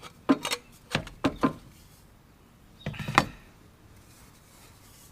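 Steel exhaust pipe being handled and slid out of its mock-up position: several sharp knocks and scrapes in the first second and a half, then a short clattering cluster about three seconds in.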